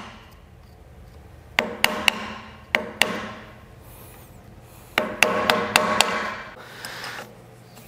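Hammer striking a steel punch to knock up the locking tabs on the bolts of a Napier Sabre engine mount, each blow a sharp metallic tap with a short ring. A few spaced taps come in the first three seconds, then a quicker run of about six taps about five seconds in.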